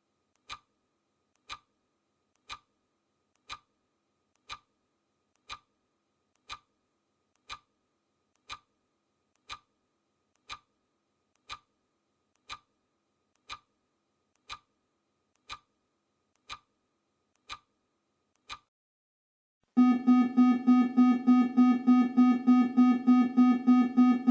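Countdown-timer ticking sound effect, one sharp tick a second, which stops; about a second later a loud electronic alarm starts, a steady-pitched tone beeping about four times a second, signalling that the countdown has ended.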